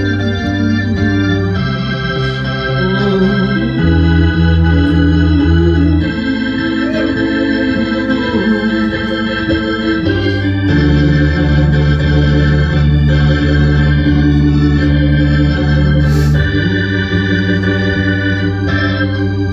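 Alesis electronic keyboard played with an organ voice: steady held chords, with the chord and bass note changing every few seconds and no singing.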